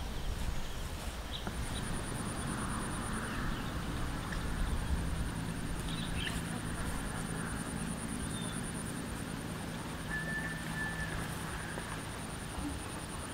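Rural field ambience: a steady, high, rapidly pulsing trill starts about a second and a half in and carries on throughout, with a few scattered bird chirps, one short clear whistled note later on, and a low rumble underneath.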